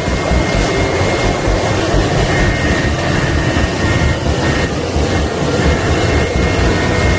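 Helicopter running steadily, a dense rushing noise with a low, uneven pulsing underneath and a faint high whine on top.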